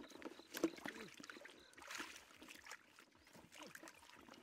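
Hands splashing and stirring in a shallow muddy water hole while groping for fish, with irregular small splashes and sloshes, the sharpest a little over half a second in.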